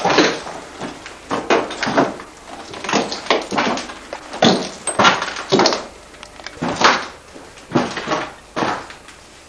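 Footsteps indoors: about a dozen uneven, scuffing steps at an irregular pace.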